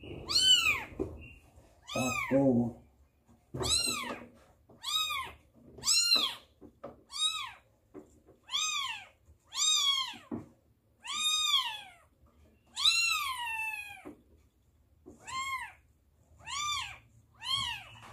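Newborn kittens mewing over and over: a string of high, thin cries, each rising and then falling in pitch, about one a second.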